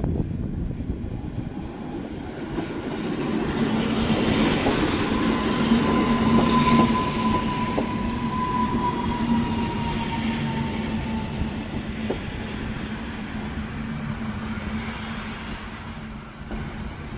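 Newag Impuls 2 electric multiple unit running in past the platform, getting louder to a peak about six seconds in and then easing off, with wheels clicking over rail joints, a steady low hum and a high whine that slides slightly down in pitch for several seconds.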